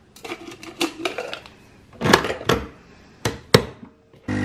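Clinks and knocks of a cup and an espresso machine being handled. Near the end the machine's pump starts with a steady hum as it begins brewing.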